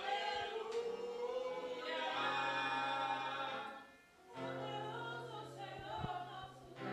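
Soft, slow worship music: voices singing long held notes over sustained chords, with a brief pause about four seconds in.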